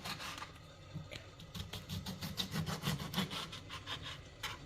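Kitchen knife slicing an orange into thin rounds: a quick run of short cutting strokes through the peel and flesh.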